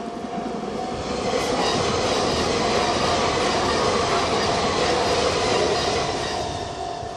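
A train passing over a level crossing: a rushing rail noise swells about a second in, stays loud for several seconds and fades near the end. Under it the crossing's warning bell rings steadily.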